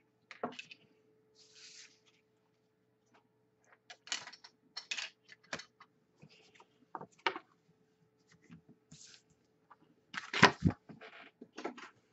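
Hands handling trading cards and packs on a wooden table: scattered rustles, cards tapping and clicks, with a few louder knocks on the table about ten seconds in.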